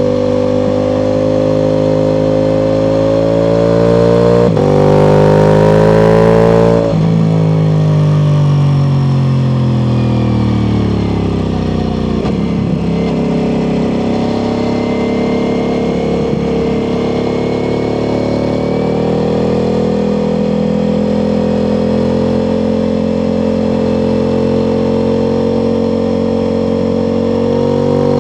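Ducati Multistrada V4 Pikes Peak's V4 engine through an Akrapovic exhaust, heard from the moving bike with wind rush. A few seconds in it pulls hard and the revs climb, with a sharp break partway through. The revs then fall away for several seconds as the throttle closes, and it settles into a steady cruise that lifts slightly near the end.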